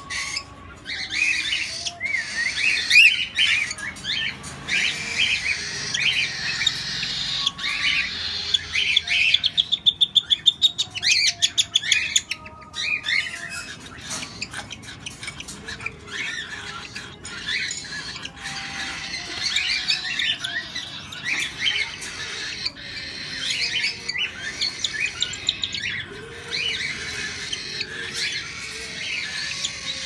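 Fallow cockatiels calling over and over: many short, rising and falling calls, with a fast run of repeated calls about ten to twelve seconds in. They are hand-fed birds calling for food from a feeding syringe.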